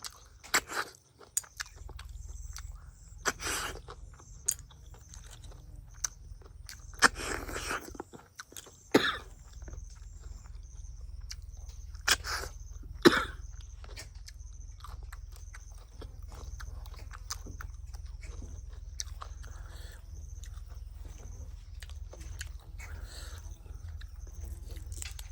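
Close-up eating sounds: a person chewing and biting, with scattered sharp clicks and short crunches over a steady low hum.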